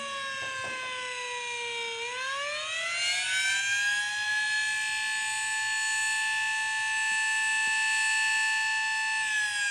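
Outdoor warning siren sounding the attack signal, a wail. Its pitch falls, climbs over about two seconds, holds steady for about five seconds, and begins to fall again near the end.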